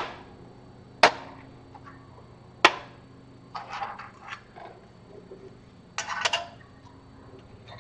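Machined steel parts and ball bearings being set down and handled on a steel workbench: three sharp metal clanks with a short ring in the first three seconds, then two spells of lighter clinking and rattling as the parts are moved about.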